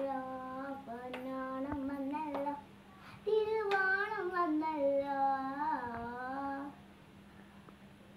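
A young girl singing solo without accompaniment, holding long, wavering notes in two phrases. The second phrase starts higher about three seconds in, and the singing stops about a second and a half before the end.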